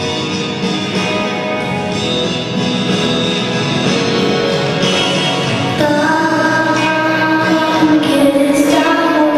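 Instrumental accompaniment to a song, then a girl's voice starts singing the melody over it about six seconds in.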